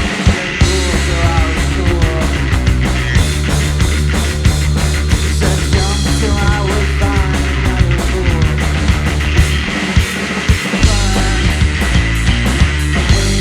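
Live rock band of guitar, bass and drums playing loudly, with a steady drum beat and no break.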